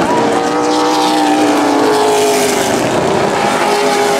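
Several super late model stock cars' V8 engines running at high revs together as they race around the track, a loud, steady drone of overlapping engine notes that shift slightly in pitch.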